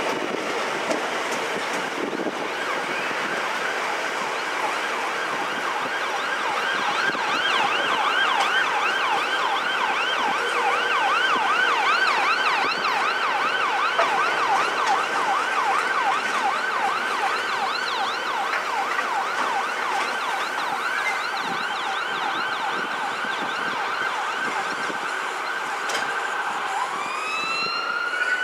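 An emergency vehicle siren sounding a fast yelp, rising and falling several times a second, that switches to a slower rising-and-falling wail near the end. Under it runs the steady rolling noise of loaded coal hopper wagons going past.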